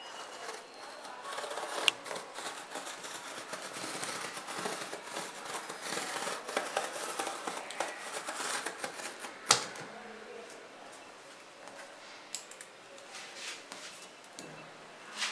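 Scissor blade slicing and scraping along packing tape on a cardboard box seam, with scratchy tearing through the first part and two sharp clicks, about two seconds in and near the middle; after that it turns quieter, with scattered light taps on the cardboard.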